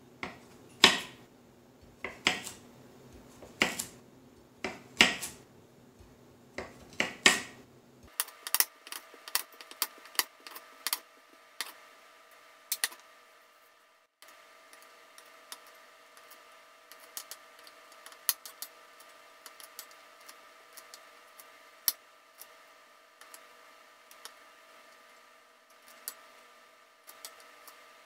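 Chef's knife chopping a carrot on a wooden end-grain cutting board. Loud single chops come about every second and a half for the first eight seconds, then quicker, fainter knife taps on the board go on over a faint steady hum.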